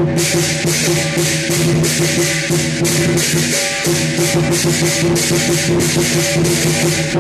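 Lion dance percussion: a big drum, cymbals and gong played in a fast, steady rhythm, with cymbal crashes several times a second over a ringing tone.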